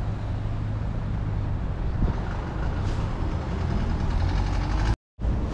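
Street traffic: vehicle engines running with a steady low rumble, and one vehicle's engine note rising as it pulls away. The sound cuts out completely for a moment near the end.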